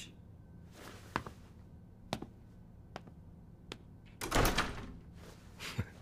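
Sparse faint clicks, about one a second, then a louder short noise just past four seconds in.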